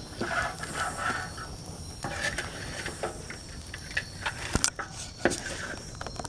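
Campfire crackling, with irregular sharp pops and snaps; the fire is fanned a little by the wind.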